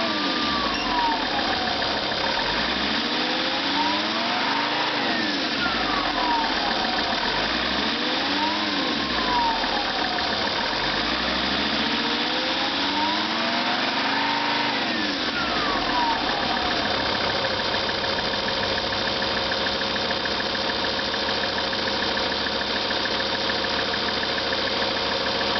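Lancia Thesis 2.4 JTD five-cylinder diesel engine, fully warm, revved up and back down four times and then settling into a steady idle. A whimpering noise is still present with the engine at operating temperature.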